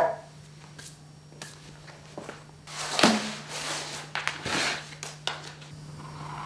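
Sheets of paper and painted boards being handled on a studio floor: a sharp knock at the start, then rustling and sliding of paper about three seconds in and again a little later, with a few light taps, over a steady low hum.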